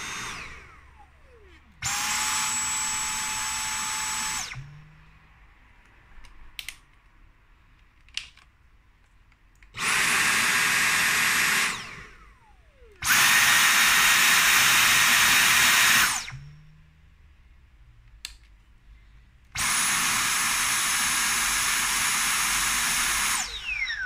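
Dyson Cyclone V10 and V8 cordless stick vacuums switched on in turn: four bursts of two to three seconds of steady rushing suction with a high whine, the pitch falling away each time the motor is switched off and spins down.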